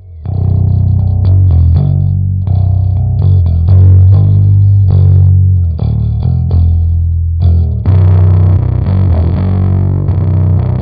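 Electric bass played through a Catalinbread SFT overdrive pedal (an Ampeg SVT-style bass overdrive), a riff of plucked low notes with a slightly distorted tone.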